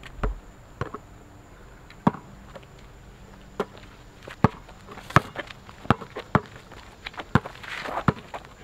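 Basketball dribbled on asphalt: about ten sharp bounces at an uneven pace.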